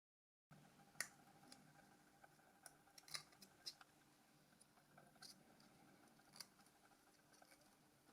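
Faint, scattered small clicks and ticks from small phone parts being handled and fitted, over quiet room tone.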